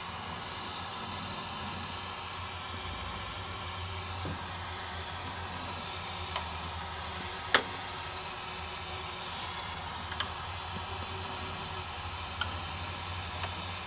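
Steady low machine hum and hiss of a machine shop, with a few light metallic ticks as a workpiece is nudged into position under an end mill in a milling vise; the sharpest tick comes about halfway through.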